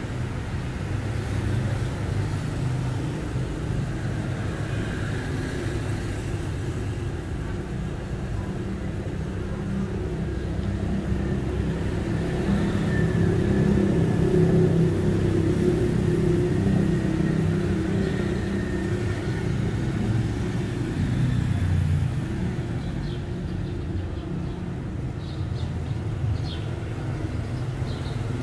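City street traffic: a steady low engine rumble from passing vehicles that grows louder through the middle and then eases off.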